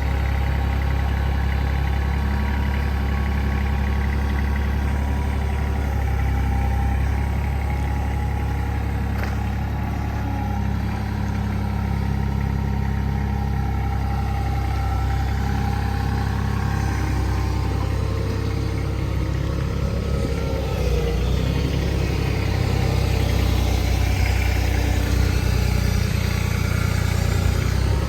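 An engine running steadily at low revs, a constant low hum throughout.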